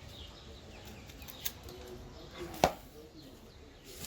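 A single sharp crack about two and a half seconds in, with a fainter knock about a second earlier, as a folding knife's blade is forced into a stick of fatwood. The edge has gone dull, so the blade wedges the wood apart rather than slicing it. Small birds chirp in the background.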